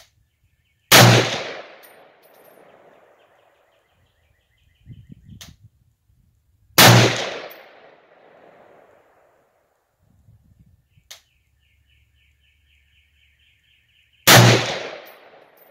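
Three shots from a scoped Springfield Armory M1A semi-automatic rifle firing 7.62x51mm 147-grain full metal jacket rounds, about six and seven seconds apart. Each is a sharp crack followed by an echo that dies away over a second or more.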